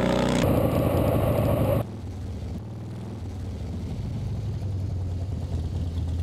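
Cruiser motorcycle riding by with its engine running. About two seconds in the sound cuts suddenly from a loud rush to a quieter, steady low engine sound as the bike approaches.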